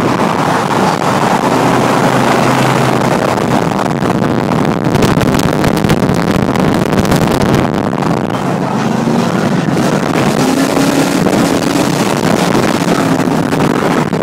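Steady wind and road noise inside a car cruising at highway speed, with a low engine drone underneath. Wind buffets the microphone through the middle seconds.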